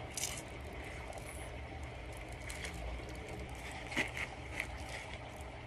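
A tortoise biting and chewing juicy watermelon: wet, crackly crunching bites, several in quick succession about four seconds in.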